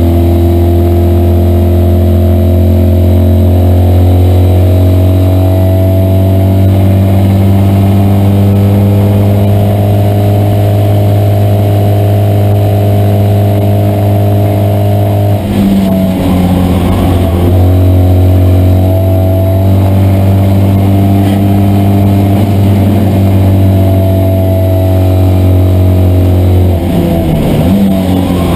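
Citroën 2CV race car's air-cooled flat-twin engine running hard at steady high revs, heard from inside the car. About halfway through the revs drop briefly and climb again, and they fall and rise once more near the end.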